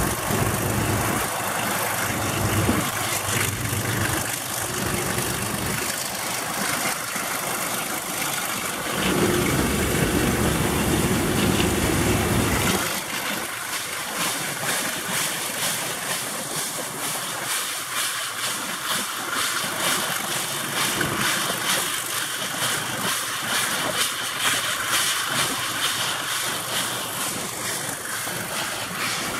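A double-headed train climbing a grade with eight cars: an ALCo RSD-8 diesel locomotive and a Baldwin Pacific (4-6-2) steam locomotive working together, with a steady mix of engine and running noise heard from the steam locomotive's cab. The deeper rumble drops away about halfway through.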